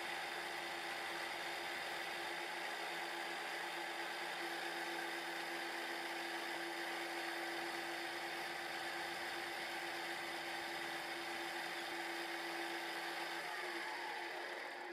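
Milling machine running, its spindle turning a pointed cutter that machines shallow grooves into the top of an aluminium fixture: a steady whir with a constant hum. Near the end the pitch falls and the sound fades as the spindle winds down.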